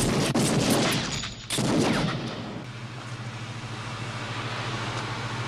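Action-film gunfire and blast sound effects: a loud burst, a second one about a second and a half in, then a fading rumble over a steady low hum.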